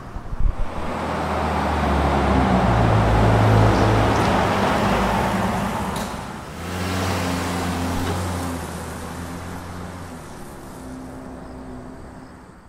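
Car passing on an asphalt road: tyre noise and a low engine hum swell up and fade. After a break at about six seconds a second pass swells and slowly dies away near the end.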